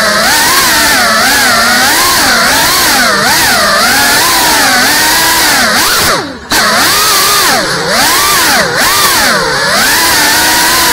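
GEPRC Cinelog35 cinewhoop's brushless motors and ducted 3.5-inch propellers whining, the pitch swinging up and down with quick throttle changes. About six seconds in, the sound drops away for a moment, as if the throttle is chopped, then comes straight back.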